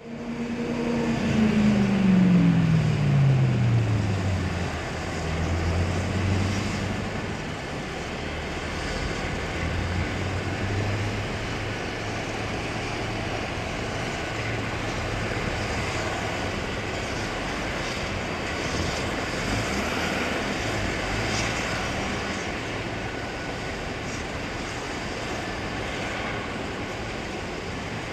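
Twin-turbine Eurocopter EC135 medevac helicopter running on a rooftop helipad with its rotor turning, a steady drone. At the start a louder tone falls steadily in pitch over about four seconds.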